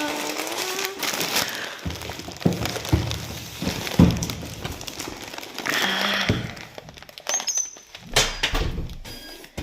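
Delivery parcels being handled and opened: rustling and tearing packaging with several knocks.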